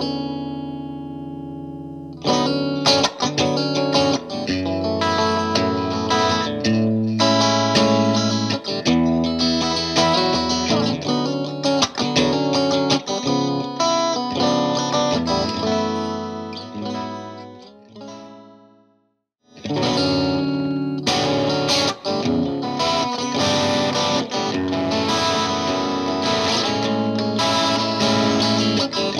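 Electric guitar, a Fender '57 Stratocaster, played through an MXR Duke of Tone pedal in its boost mode into a clean Vox AC15 amp. A ringing chord dies away, then a passage of chords and single notes fades out to a moment of near silence about 19 seconds in, before a second passage starts.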